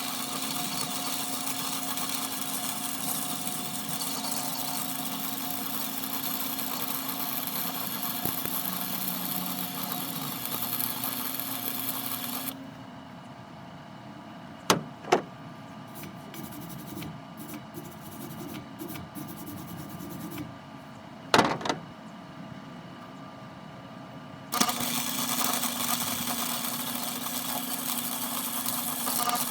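An engine running steadily. It breaks off suddenly about twelve seconds in, leaving a quieter stretch with a few sharp knocks, then the engine sound comes back suddenly near the end.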